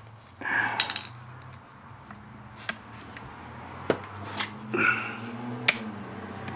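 Small metal tools and parts clinking and tapping as they are picked up and handled, a handful of sharp clicks spread through, over a low steady hum.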